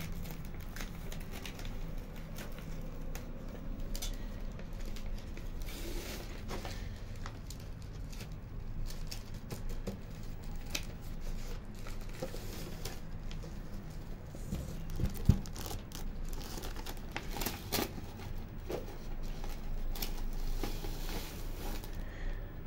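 Self-adhesive decorative vinyl sheet crinkling and crackling as its backing paper is peeled off and the sheet is handled and pressed onto a cardboard box. One sharp knock stands out about two-thirds of the way through.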